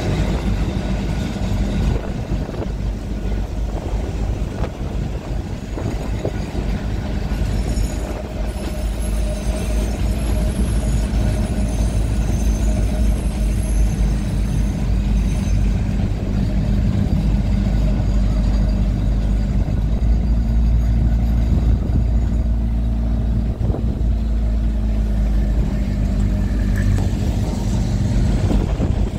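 Blackpool open-top boat tram running at speed along the track: a steady rumble and hum from the electric tram, with wind on the microphone. It grows a little louder past the middle.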